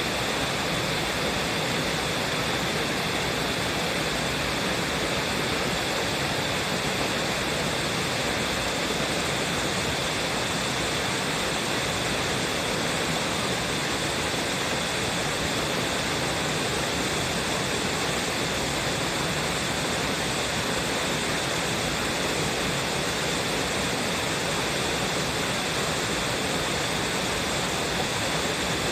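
Waterfall: a steady, unbroken rush of falling water splashing onto the pool and rocks below.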